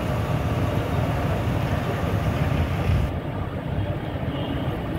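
Medu vadas sizzling as they deep-fry in a large kadai of hot oil, a steady hiss over a louder, continuous low rumble.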